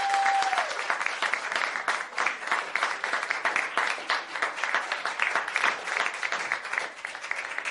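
Studio-audience applause: many hands clapping densely and steadily, with a single held high tone over the first half second.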